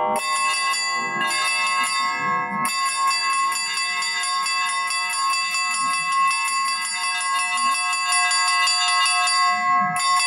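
Russian church bell ringing (zvon): quick, continuous strikes of small high bells over the sustained ringing of the larger bells.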